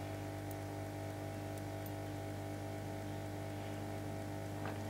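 Hot-air rework station blowing steadily onto the AS15 gamma IC on an LCD TV's control board, heating the chip's solder: a steady hum with an even hiss of air.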